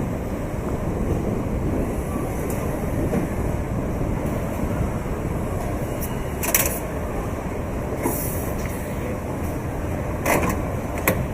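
Car assembly plant noise: a steady low machinery rumble, with a few sharp clicks and knocks from the line about six and a half, eight, ten and eleven seconds in.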